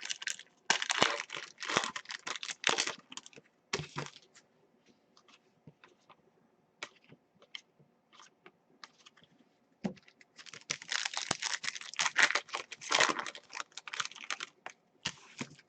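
Stiff trading cards being flicked through by hand, giving quick papery clicks and slaps: two dense runs of rapid clicks, one near the start and one in the second half, with scattered single clicks between.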